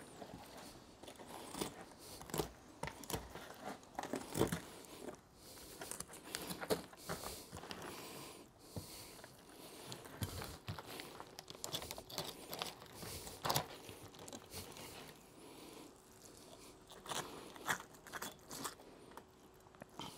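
Knife cutting through the flesh of a large alligator gar being filleted, with irregular crunching and tearing strokes as the blade works along the fish.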